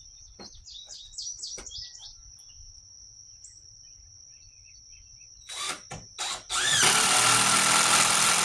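A few handling knocks, then about seven seconds in a cordless drill spins up and runs steadily, boring a pilot hole into an oak stud for a decking screw. A cricket trills steadily throughout, with a few bird chirps about a second in.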